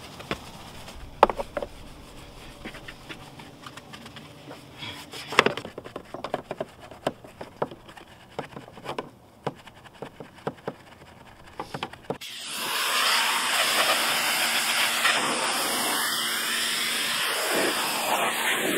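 Detail brush scrubbing a car's door jambs, with scattered clicks and knocks from the brush and a spray bottle. About two-thirds of the way through, a pressure washer's water jet starts with a loud, steady hiss as the door jambs are rinsed.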